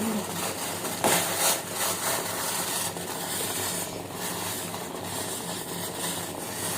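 A metal spoon scraping and tapping against a cooking pot as spices are put into the water, a few light knocks and rubs over a steady hiss.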